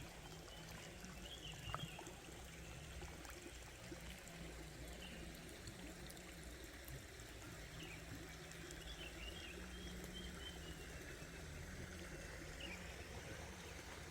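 Faint running water, a steady trickling flow, with scattered high chirping calls from small animals over it.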